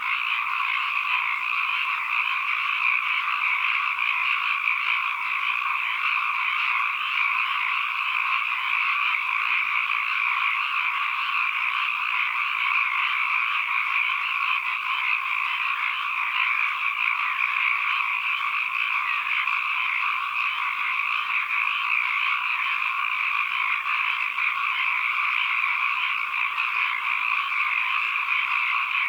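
A dense chorus of many frogs calling at once, merging into a steady, unbroken din of croaking.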